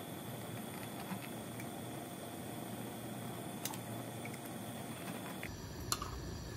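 Faint clicks and taps from a micropipette and small plastic tubes being handled at a lab bench, over a steady background hum. About five and a half seconds in the hum shifts suddenly and becomes deeper.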